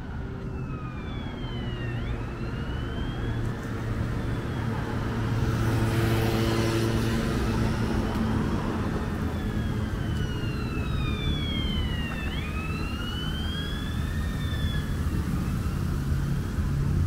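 Emergency vehicle siren wailing, sweeping slowly up and down in pitch and dipping to its lowest point twice, over steady city traffic rumble. The traffic swells around the middle, as a vehicle passes close by.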